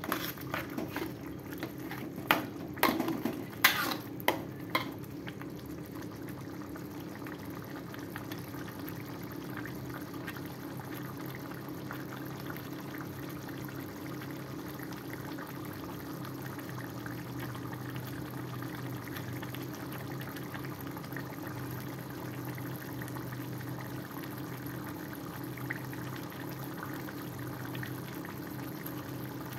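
Red chili sambal simmering and bubbling in a wok. A metal spatula knocks and scrapes against the wok a few times in the first five seconds, then a steady bubbling simmer.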